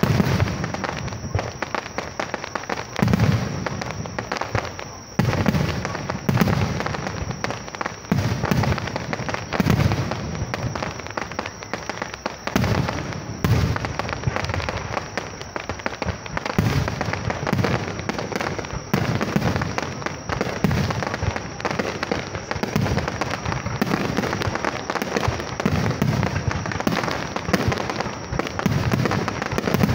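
Aerial firework shells bursting one after another, a deep boom every second or two, with a continuous crackle between the booms.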